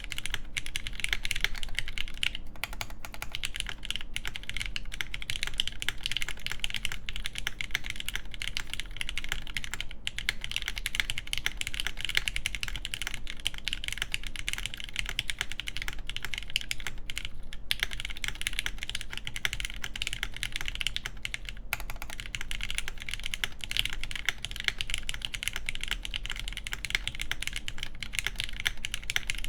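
Steady, fast typing on a JJW Derivative custom mechanical keyboard with lubed, filmed milky-housing Gateron Yellow linear switches, an aluminium half plate and GMK keycaps. The keystrokes come thick and fast, with a few brief pauses.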